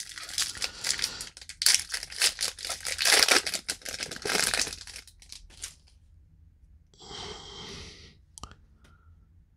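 A foil baseball card pack wrapper being torn open and crinkled, in a dense run of crackling for about five seconds, then a shorter burst of crinkling and a few small clicks near the end.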